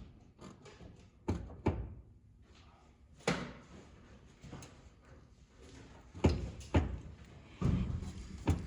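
Several sharp knocks and clunks at irregular intervals, about six in all, from the truck's heater fan housing and its fittings being knocked against the firewall as it is put into place.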